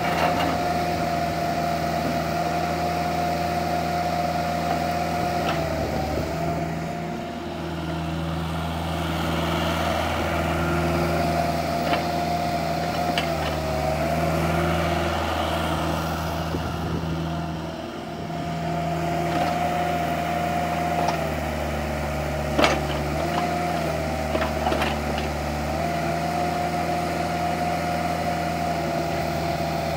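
Kubota KX121-3 mini excavator's four-cylinder diesel running while the boom, arm and bucket are worked, with a steady whine that dips and returns as the controls are moved. A few sharp clicks and knocks, the loudest about two-thirds of the way through.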